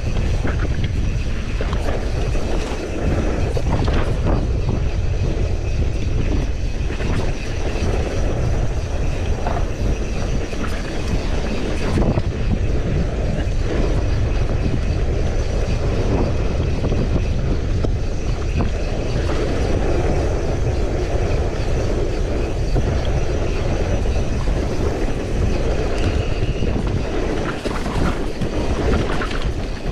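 A vehicle in motion: a steady, loud running rumble and rattle, with a few scattered clicks and knocks.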